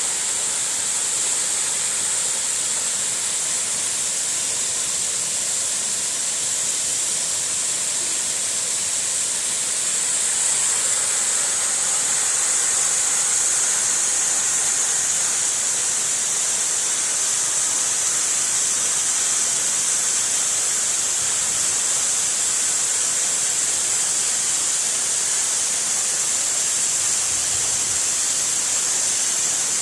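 Waterfall: a steady, loud rush of falling water, swelling slightly about ten seconds in.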